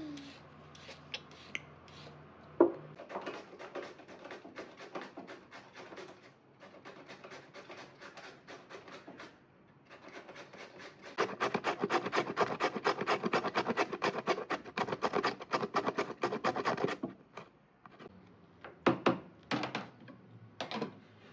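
Vegetables being worked by hand: quick, rhythmic scraping strokes against wood. They turn faster and louder about halfway through, around six a second. A sharp knock comes early on, and a few separate knocks near the end.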